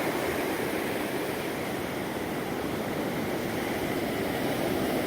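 Pacific Ocean surf washing in and out, a steady even rush of water.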